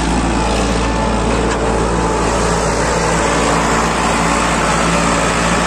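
Eicher 551 four-wheel-drive tractor's diesel engine running steadily under load, with a rotavator behind it churning dry soil.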